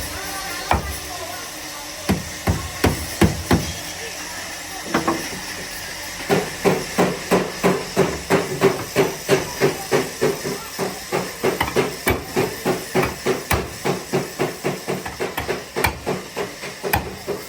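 Hammer striking car body sheet metal, a few scattered blows and then a steady run of quick ringing blows, about three a second: panel-beating dents out of the car's rear bodywork.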